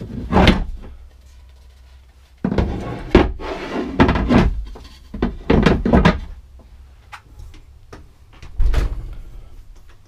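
A sink cover being lifted and set back down on a bathroom countertop. There is one knock about half a second in, then a run of knocks and scraping against the counter, and one more thump near the end.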